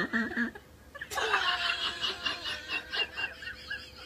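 A person laughing in a run of short, quick pulses, about five a second, starting about a second in and trailing off.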